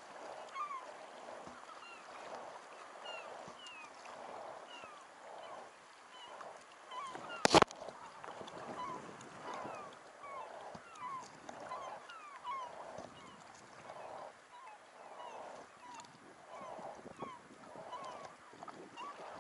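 Many seabirds calling over and over, short calls overlapping, above the splash of double-bladed kayak paddle strokes that swells about once a second. A single sharp knock a little before halfway.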